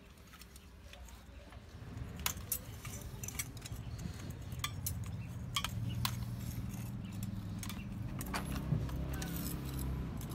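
Scattered sharp metal clicks and clinks as a Honda Spacy scooter's centrifugal clutch-shoe assembly and small parts are handled with a hand tool. A low rumble grows louder about two seconds in.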